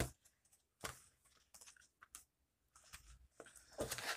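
Quiet room with a few soft, scattered clicks, about four over the few seconds.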